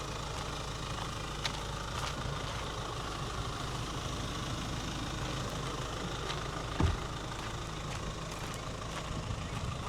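Rely R8 pickup's engine running low and steady as the truck crawls in four-low with both diff locks engaged. A couple of light clicks early, and a short thud about seven seconds in.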